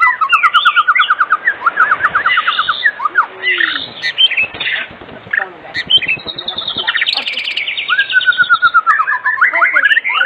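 White-rumped shama (murai batu) singing a loud, varied song of whistled notes broken by several fast runs of rapidly repeated notes.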